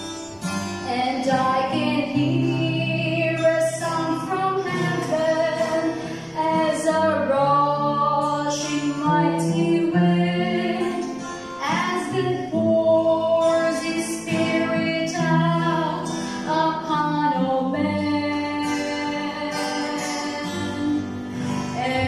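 Two women singing a song together, accompanied by an acoustic guitar.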